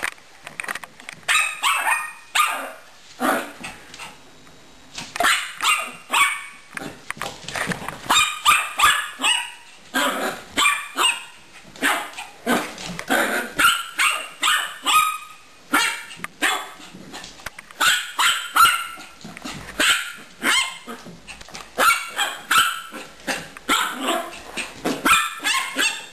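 A dog barking over and over in quick bursts, pausing briefly a few times, while playing at a hamster.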